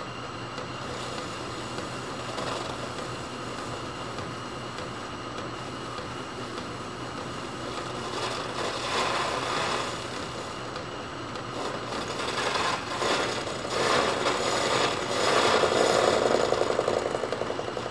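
Metal lathe running while a very fine finishing cut is taken, the cutting tool scraping on the turning metal; the cutting noise swells louder twice in the second half.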